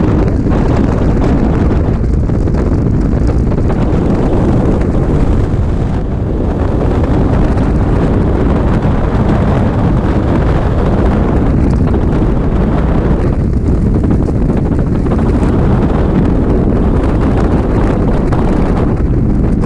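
Freefall airstream blasting over a skydiver's camera microphone: loud, steady wind noise with no break.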